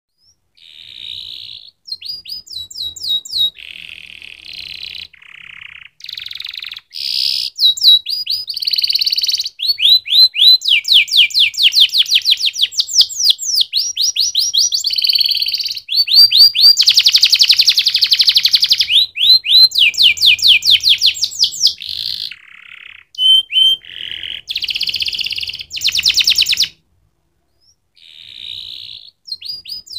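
Canary singing a long, high-pitched song of fast trills and rolling runs of rapidly repeated notes, changing phrase every second or two, with a brief pause near the end.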